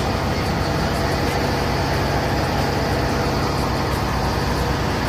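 Steady drone of a river passenger boat's engine under way, mixed with the even rush of wind and water.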